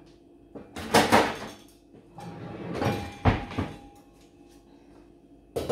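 Knocks and clatter of a lower kitchen cabinet being opened and shut and things moved about inside it: a cluster of sharp knocks about a second in, another around three seconds in, and a single knock near the end.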